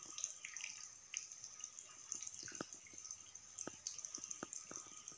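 Water dripping into shallow standing water: about ten irregular, sharp plinks, most of them in the second half, over a faint steady high hiss.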